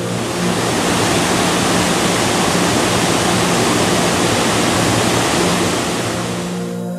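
Rushing white water of a fast river pouring over rocks, a loud steady wash of noise that comes in suddenly and fades out near the end.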